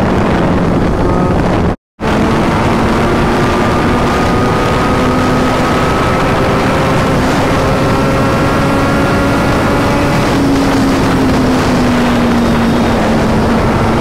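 Kawasaki Z900's inline-four engine pulling hard in sixth gear at highway speed, its pitch climbing steadily, then easing off and slowly falling over the last few seconds. Heavy wind noise on the microphone runs under it, with a split-second dropout about two seconds in.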